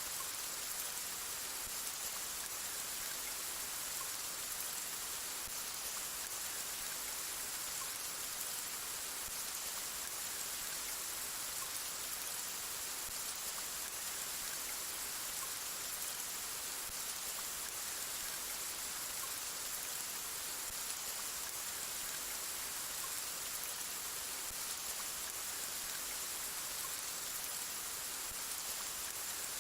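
Steady rain falling, an even hiss dotted with fine drop ticks.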